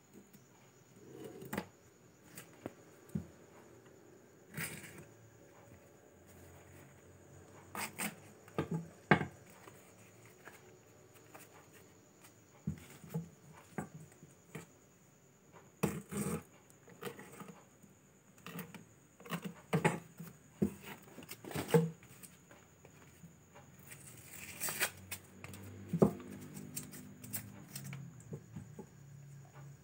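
Cardboard and paper mailer being pried open by hand and with a snap-off cutter blade: scattered rustles, scrapes and light taps, with a longer tearing rustle about 25 seconds in.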